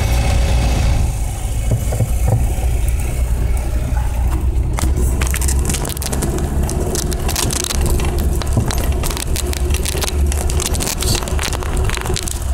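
Lada 2107 driving over a rough dirt track, heard from inside the cabin: a steady low engine and road rumble. From about five seconds in, a thick run of clicks and cracks rises over it, from the rough surface and brush striking the car.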